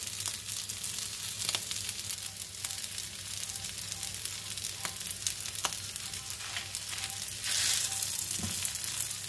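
Kwetiau goreng (flat rice noodles) sizzling as it is stir-fried in a frying pan, with scattered sharp clicks through the steady sizzle. The sizzle swells for about a second near the end as the noodles are turned over.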